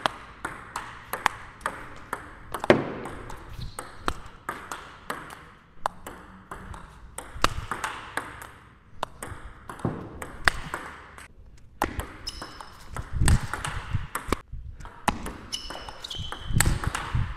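Table tennis rally in topspin practice: the ball clicks sharply off the rackets and the table in a quick, even back-and-forth. A few heavier thuds and short high squeaks come in the second half.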